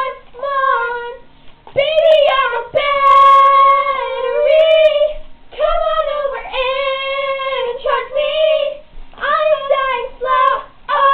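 Two young girls singing a song without accompaniment, with a few long held notes.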